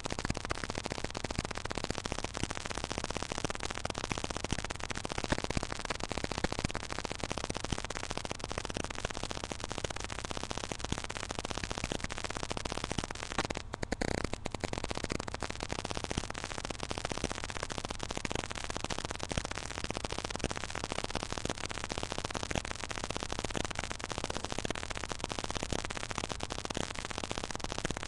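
Steady static hiss with no distinct events, briefly cutting out twice about fourteen seconds in.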